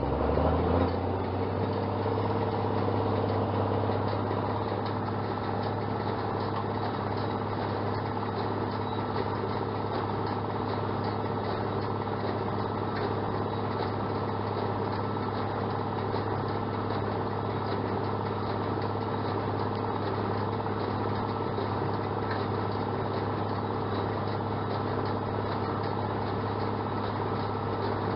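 Farmall 806 tractor's six-cylinder engine revving up right at the start, then settling into a steady run.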